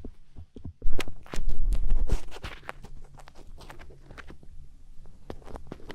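Close-up ASMR sounds made directly on a daruma-style binaural microphone: a run of sharp scratching clicks and crackles, with loud deep rubbing against the mic from about one second in to about two and a half seconds in.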